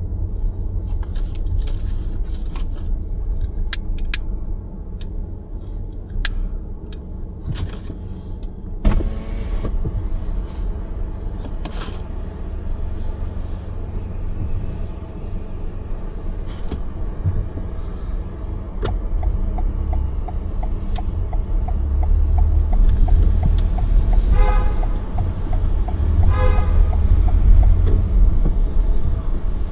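Car driving in traffic: a steady low rumble of road and engine noise, with scattered sharp clicks in the first ten seconds and short pitched tones about 9, 24 and 26 seconds in.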